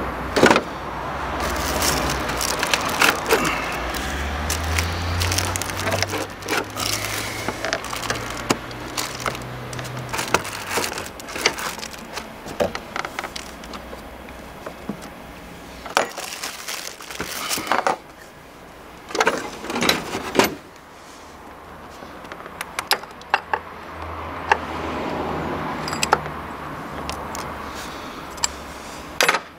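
Irregular clicks, knocks and rattles of hands and a socket wrench working on a car battery's terminal and hold-down fittings while the battery is removed.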